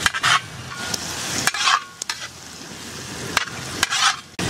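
Sliced onions frying in hot oil in a large iron kadai, sizzling steadily, while a metal ladle stirs and scrapes through them in several short strokes.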